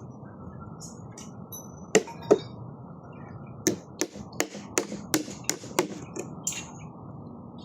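Series of sharp knocks from a tool striking a hard surface: two at about two seconds in, then a quicker run of about nine, roughly three a second, over a steady low background noise.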